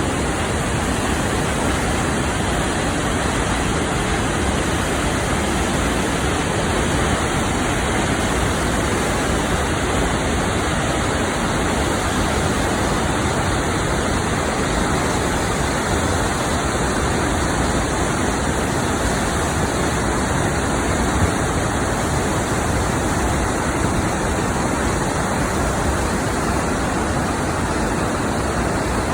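Tännforsen waterfall: a loud, steady rush of falling water that never lets up.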